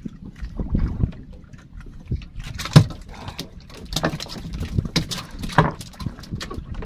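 Water lapping at a small wooden fishing boat's hull, with several sharp knocks and clatter of fishing gear against the boat as a longline is hauled in by hand; the loudest knock comes about a third of the way in.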